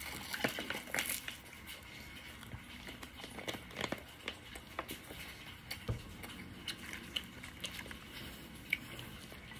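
Close-up eating sounds: biting and chewing rice-and-shredded-chicken rolls wrapped in crisp seaweed sheets, heard as scattered soft crunches and small clicks.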